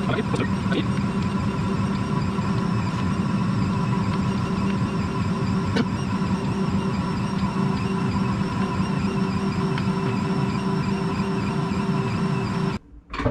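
Ankarsrum Assistent stand mixer running at a steady pitch as its turning bowl kneads bread dough against the roller and scraper. The motor cuts off suddenly near the end.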